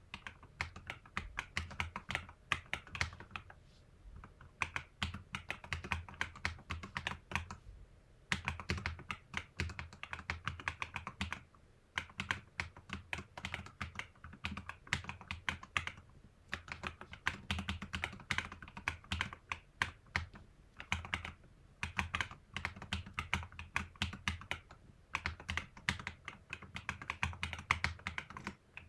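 Typing on a mechanical keyboard with lubed Akko V3 Cream Yellow Pro linear switches and PBT XDA keycaps, damped with O-rings, foam and tape: rapid key presses in runs of a few seconds with short pauses between.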